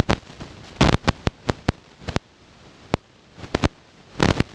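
Irregular sharp clicks and taps of small plastic and metal parts being handled on a repair bench, some coming in quick clusters.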